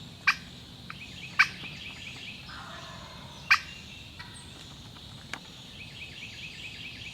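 Wild turkey tom gobbling: rapid rolling runs of short high notes, twice, with three sharp loud calls standing out above them, answering a hunter's turkey calling.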